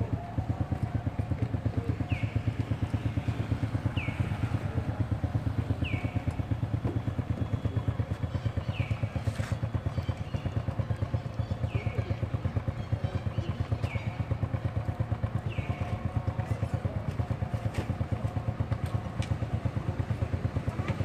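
Small motorcycle engine idling with a steady, even pulse. A short high chirp repeats about every two seconds over it.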